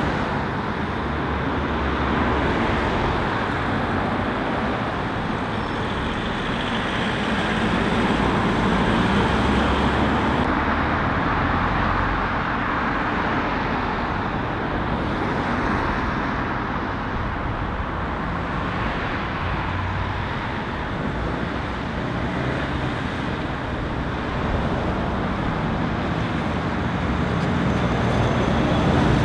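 Road traffic going round a roundabout: cars driving past in a steady mix of engine and tyre noise. Near the end it grows louder as a DAF box lorry pulls round close by.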